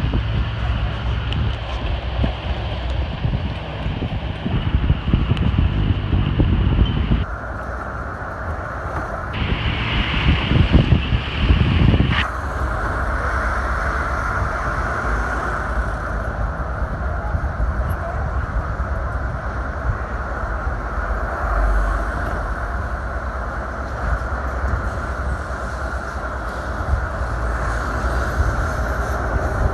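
Engine, road and wind rumble heard from riding in an open early-1950s Chevrolet convertible in city traffic. The sound changes abruptly three times in the first dozen seconds where clips are cut together, then runs steadily.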